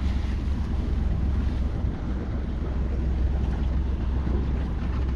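Steady wind buffeting the microphone, a constant low rumble with a hiss above it and no rhythm or engine note standing out.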